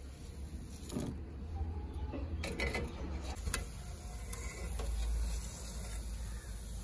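Steel perforated skimmer clinking and scraping against a steel frying pan as fried gulab jamun are scooped out of the hot oil, a handful of short clicks, with a faint sizzle of the frying oil over a low rumble.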